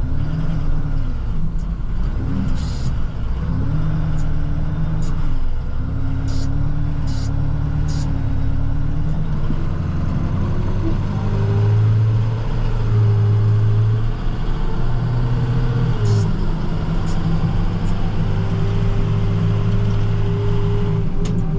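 Plow truck's engine running steadily while driving, heard from inside the cab. Its pitch shifts a little, rises about ten seconds in and is strongest for a few seconds after, with a few scattered faint ticks.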